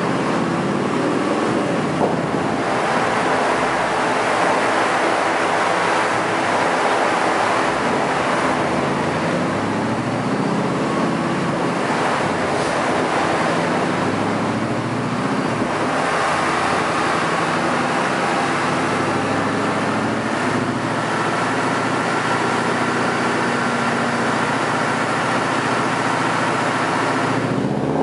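Ford Mustang's engine running under load on a chassis dynamometer, its pitch climbing and dropping several times, over a steady loud rushing noise.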